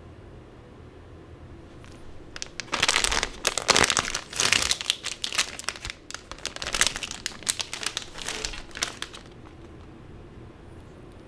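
Plastic snack bag crinkling and crackling as it is handled and pulled open by hand. The rustling starts about two and a half seconds in and stops around nine seconds in.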